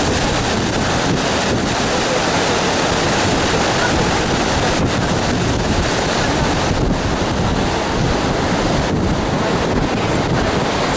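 Steady rush of a river's flowing water, with wind buffeting the microphone.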